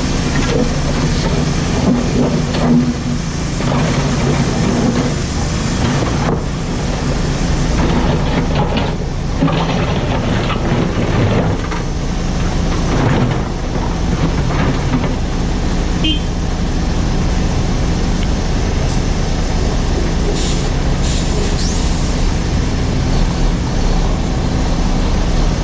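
JCB 4CX backhoe loader's diesel engine working under load, running steadily. From about eight to thirteen seconds in, a run of sharp cracks and scrapes comes through as the bucket breaks up asphalt.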